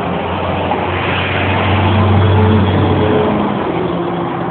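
An engine running steadily, a low hum under a noisy background that swells a little in the middle and then eases.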